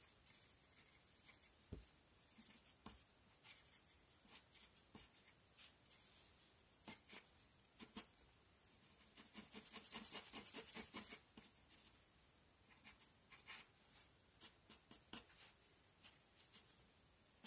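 Faint scratching of a pencil on paper during sketching: scattered single strokes, with a run of quick repeated strokes about halfway through.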